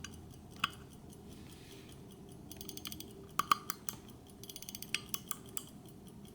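Ratchet of an antique Breguet-style pocket-watch winding key clicking as the key is turned: two quick runs of fine, even clicks about halfway through, with a few louder single clicks around them.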